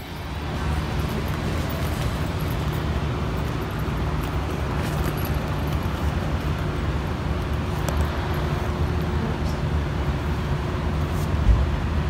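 Steady low outdoor rumble with a faint hiss, and a single bump near the end.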